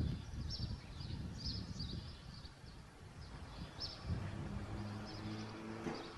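Small birds chirping in short repeated bursts over a low outdoor rumble, with a steady low hum from about four seconds in that stops near the end.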